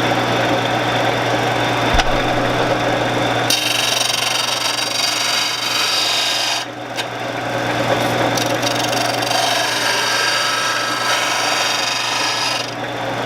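Shopsmith running steadily while a 3/8-inch lathe gouge is ground in its sharpening guide. A harsh, high grinding sets in about three and a half seconds in, as the steel meets the abrasive. It drops back sharply near seven seconds and then goes on more lightly.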